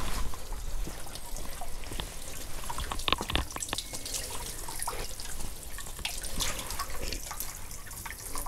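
Spring water trickling and splashing, with irregular drips and small splashes.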